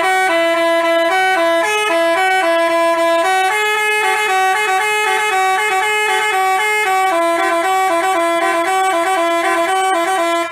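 Bus telolet horn of the Basuri type playing a loud tune of quick stepping notes, like a melody played on air horns. It cuts off near the end.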